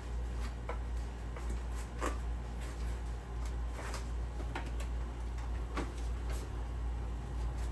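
Irregular light knocks and clicks from hands handling installation materials, over a steady low hum.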